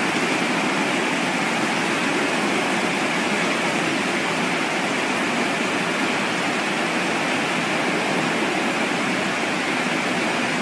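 Flash flood: a torrent of muddy floodwater rushing down a street, a loud steady rush that never lets up.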